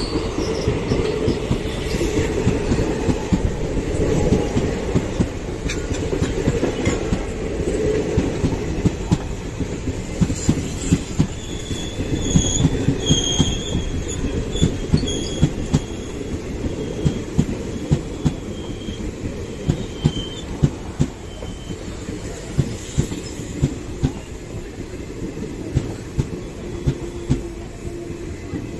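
ICF passenger coaches rolling past on the rails of an arriving express, wheels clattering over the rail joints in a steady run of sharp clicks. Brief high-pitched wheel squeals come in about halfway through.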